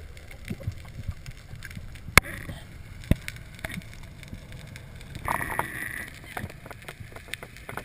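Underwater sound heard through a mask-mounted GoPro housing during a spearfishing dive: a low, steady water rush with scattered clicks and knocks, two sharp clicks about two and three seconds in, and a brief hiss a little after five seconds.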